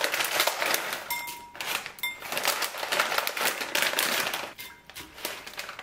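Dried daylily buds shaken out of a crinkling plastic bag and dropping into a glass bowl of cold water: a dense run of small crackles and clicks.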